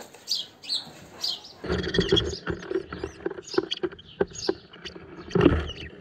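House sparrows chirping in short repeated calls. From about a second and a half in, rapid scratching and knocking sets in, with the chirps going on over it, as the birds move about on the straw nest inside the cardboard nest box.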